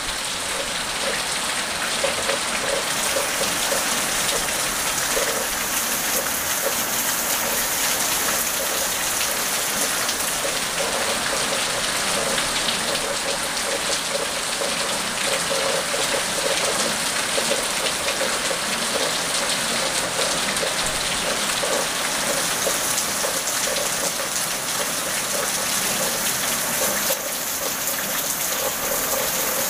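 Steady rain falling on pavement and a wet tiled surface: a dense, even hiss with the patter and splash of drops.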